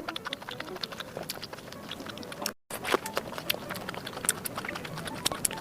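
Close-miked eating sounds: chewing food with many quick, wet mouth clicks. The sound drops out completely for a moment about two and a half seconds in.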